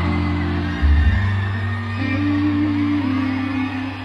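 Live band music through a large PA: sustained bass and chord tones changing about once a second, with faint crowd noise.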